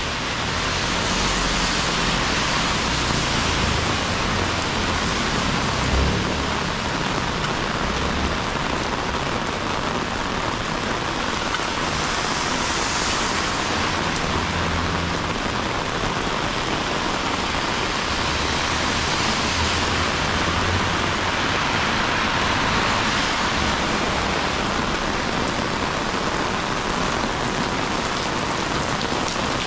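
Heavy rain pouring steadily onto a city street, a dense even hiss, with brief low rumbles underneath now and then.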